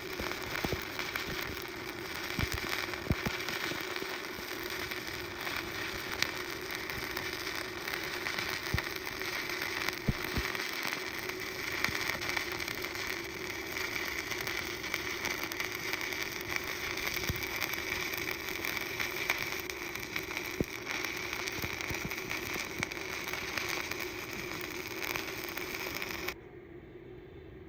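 Stick-welding arc crackling steadily with scattered sharp pops as a bead is run. The arc cuts off abruptly near the end.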